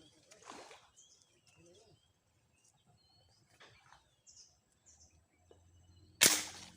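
Faint bird chirps, then near the end a single sharp air gun shot.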